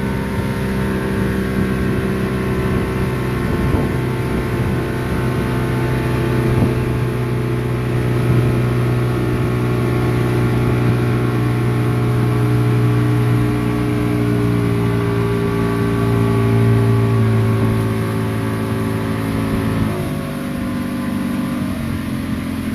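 Motorboat engine running steadily at speed, then dropping in pitch about twenty seconds in as it throttles back.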